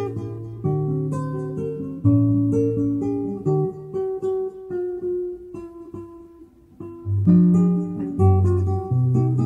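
Background music: an acoustic guitar picking single notes over low bass notes, softer in the middle and fuller again near the end.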